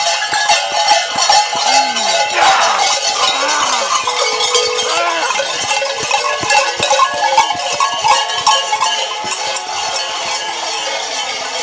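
Large cowbells worn on Krampus costumes clanging in a dense, continuous jangle as the runners pass, easing off somewhat near the end.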